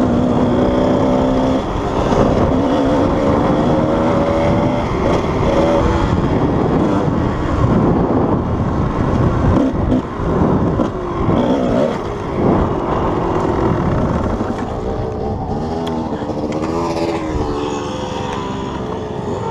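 Kawasaki KDX220 single-cylinder two-stroke dirt bike engine running under way, its revs rising and falling as the bike is ridden.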